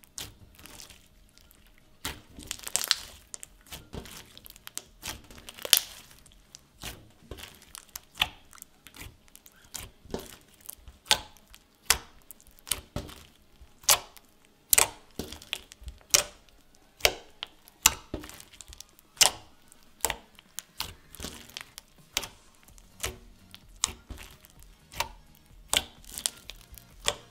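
Hand squishing and pressing a cream cheese slime packed with small foam beads and mini pom-poms: irregular sharp, sticky pops and crackles, about one or two a second, from the crunchy bead-filled slime.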